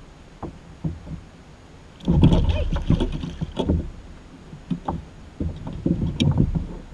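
Knocks and low rumbling on a plastic sit-on-top kayak's hull, in two bouts, the first and louder one about two seconds in.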